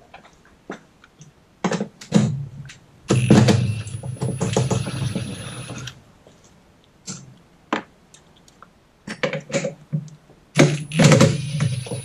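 Cordless drill/driver running on the screws of the frunk liner. The motor whines in two runs, one starting about three seconds in and lasting about three seconds, the other starting near the end. Short clicks and knocks fall in between.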